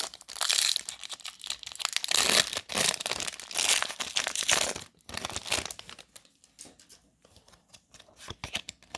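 Pokémon card booster pack's foil wrapper being torn open and crinkled by hand: dense crackling for about five seconds, then lighter, scattered crinkles as the pack is emptied.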